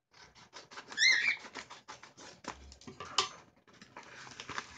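Plastic mail pouch crinkling and rustling in the hands as it is cut and pulled open, with a rapid run of crackles. About a second in comes one short, high squeak that bends in pitch, the loudest sound here.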